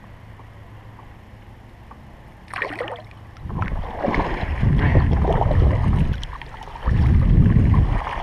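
Handling noise on a kayak-mounted action camera: a quiet steady background, then from about two and a half seconds in a short knock and two loud stretches of low rumbling and knocking as the camera is moved about.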